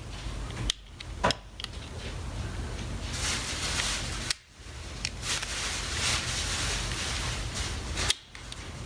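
Plastic parts of an electric shaver's housing being pried and lifted off by hand: a few sharp clicks, then a long scraping, rubbing noise broken twice by short pauses.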